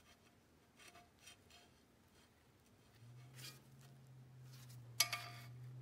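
The red plastic cutterhead guard of a 6-inch jointer being handled and worked down onto its spring-loaded post: faint rubs and light clicks, then one sharp click with a short ring about five seconds in. A low steady hum runs under the second half.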